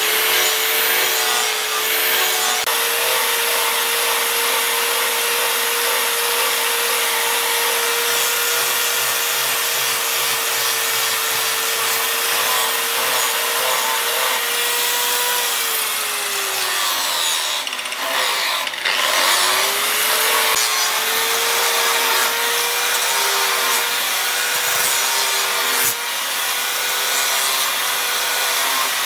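Electric power tool running with a steady abrasive hiss, as in grinding or sanding work on the knife. Its motor pitch falls as it spins down about halfway through, then climbs back up to full speed a few seconds later.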